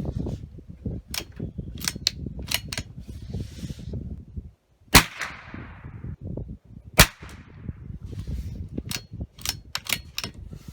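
.22 rifle shots: two loud sharp shots about two seconds apart near the middle, each with a short ringing tail, with fainter sharp cracks before and after them and a low rumble throughout.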